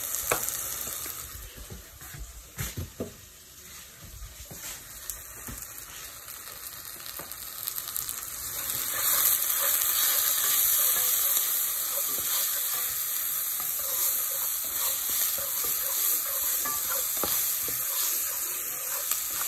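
Sliced onions and tomatoes frying in a nonstick pan, sizzling. A few knocks come in the first seconds, and about nine seconds in the sizzle grows louder and holds steady.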